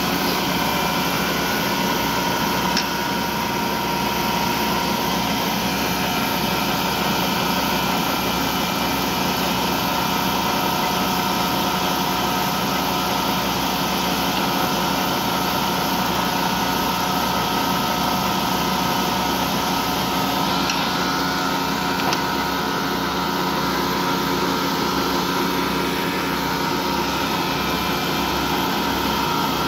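Vertical turning lathe running steadily while its tool cuts a groove into a large metal ring: a constant mechanical drone with several held tones.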